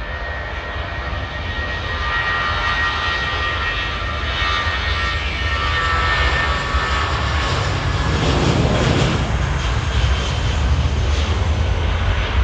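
Jet engines of a British Airways Airbus A320-family airliner running at high power on the runway. A high whine fades out about halfway through while a deep rumble builds, and the sound grows louder throughout.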